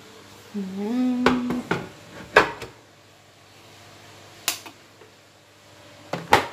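Toshiba rice cooker being handled: a few hard knocks, the loudest about two and a half seconds in, a click about four and a half seconds in, and a sharp double click near the end as the lid snaps shut. A brief rising tone sounds about a second in.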